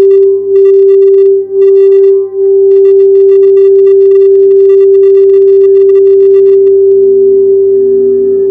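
Quartz crystal singing bowl ringing a loud, steady, pure tone. Its loudness pulses for the first couple of seconds and then evens out, with a fast faint high chatter over it that stops shortly before the end. A second, lower bowl tone swells in near the end.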